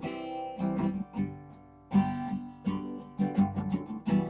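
Acoustic guitar strummed in a series of chords, each strum ringing on until the next.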